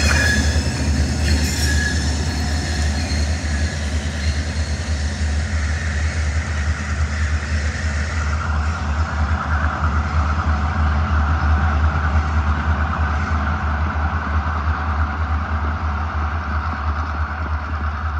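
Diesel locomotive's engine with a constant low rumble, its wheels squealing briefly at the start as it rolls close past on the rails. From about eight seconds in, a steady hiss joins the rumble.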